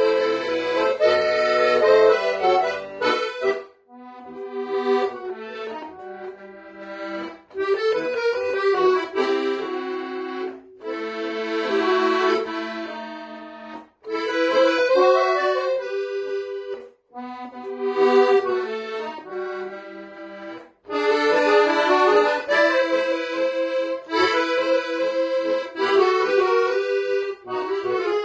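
Solo piano accordion playing a tango, phrase after phrase with brief breaks between them. Quieter passages alternate with louder ones, and the last third is played loud.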